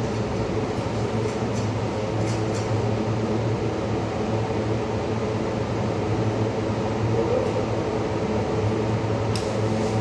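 Steady low mechanical hum, like a large fan or air-handling unit, with a few faint light clicks.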